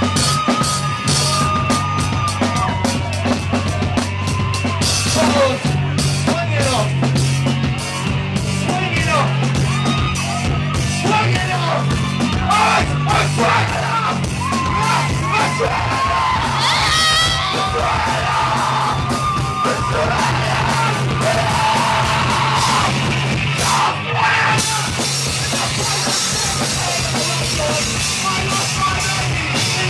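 Live rock band playing loud: a drum kit with cymbals, electric guitar, and a singer shouting into a microphone.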